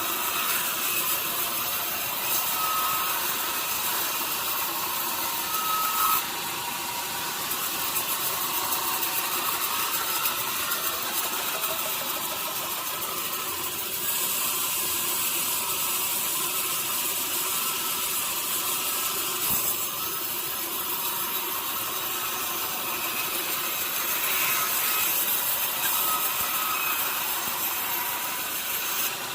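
Sawmill saw cutting through a large log, a steady, mostly high-pitched noise of the blade in the wood with faint tones coming and going.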